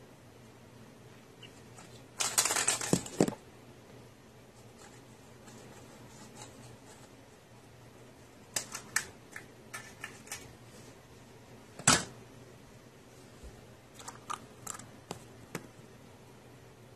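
A short burst of rustling, then scattered light clicks and taps, with one sharper tap near the middle.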